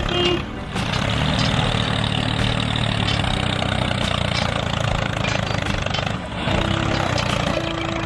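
Steady engine-like running sound of a toy remote-control excavator working its arm and bucket, dipping briefly about half a second in and again near six seconds, with a couple of short steady tones near the end.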